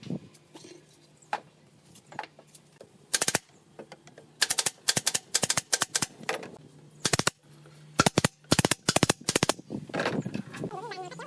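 Sharp knocks on wood, coming in quick runs of several strikes at a time, with gaps of about half a second to a second between runs. A faint steady low hum runs underneath.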